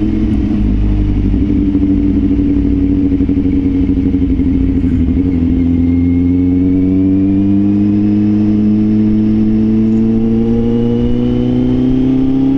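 Motorcycle engine running under way, heard over low wind rumble. Its pitch dips briefly about five seconds in, then rises steadily as the bike accelerates.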